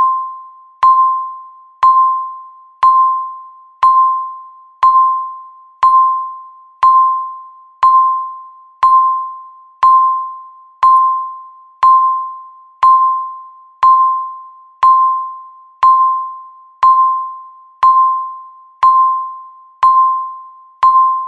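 Countdown timer beeping once every second, each beep marking one second left: a single electronic tone at one steady pitch that starts sharply and fades away before the next.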